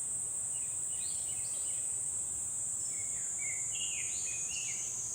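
Steady high-pitched trilling of insects, with short bird chirps about a second in and again from about three seconds in.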